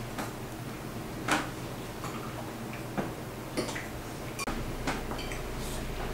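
Forks and cutlery clicking lightly against plates, a few scattered ticks at irregular intervals.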